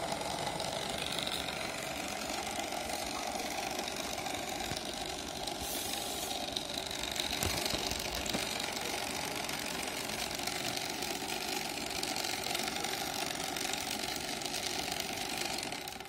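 Small electric motor running steadily with an even whir.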